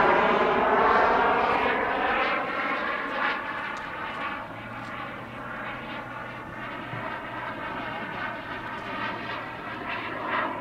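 Boomerang RC jet's model turbine engine whining on a flyby, loud at first and fading over the first few seconds as the jet moves away, then holding steady.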